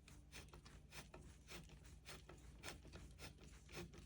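Faint, scattered light clicks and taps of a screwdriver turning a screw into the planter's frame bar, over a low steady hum.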